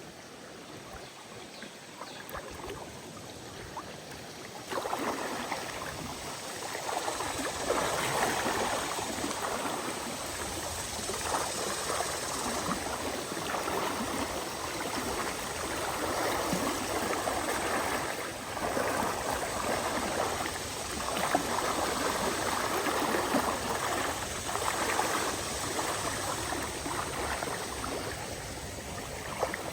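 River water flowing and splashing, a steady rushing that gets clearly louder about five seconds in.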